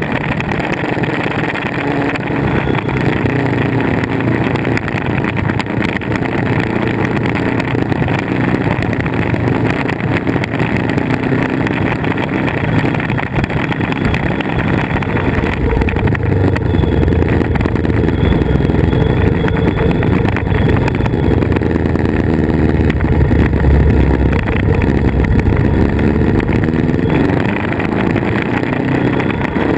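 Motorcycle engine, the Yamaha VMAX 1700's V4, running under way, its note rising and falling with the throttle through the bends, under a steady rush of wind and road noise.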